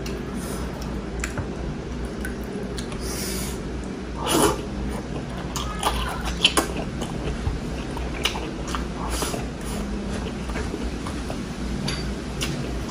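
Close-up eating sounds of a person chewing rice and soupy beef sinigang by hand: wet chewing, lip smacks and mouth clicks. A louder wet mouth sound comes about four seconds in, and a couple of sharp clicks a little after six seconds.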